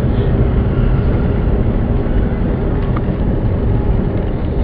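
Steady low rumble of a moving vehicle's road and wind noise, heard from inside the vehicle.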